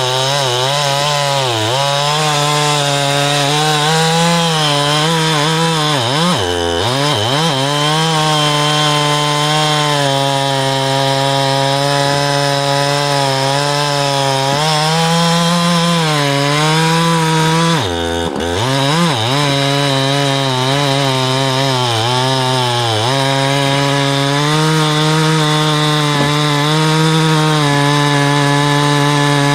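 Jonsered CS2172 two-stroke chainsaw with a 24-inch bar and Stihl Rapid Super chain, cutting through a large red oak log at full throttle. The engine note holds steady under load, then drops sharply and recovers twice, about six and a half and eighteen seconds in, as the chain is pressed harder into the cut.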